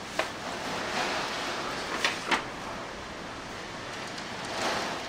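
Torrential rain pouring down steadily, driven sideways onto a window and porch, with a few short knocks or clatters on top.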